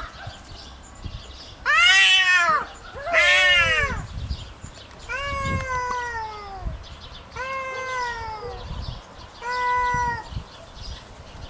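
Tabby cats yowling at each other in a territorial standoff: five drawn-out yowls, the first two loudest, rising and then falling, the later ones sliding down in pitch.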